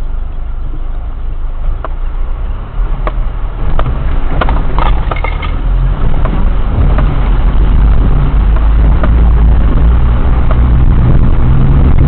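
Four-wheel drive's engine working at a crawl as it drives into a river ford about a metre deep, heard from inside the cab, with scattered knocks and clunks. The rumble grows louder about three to four seconds in and again at six seconds.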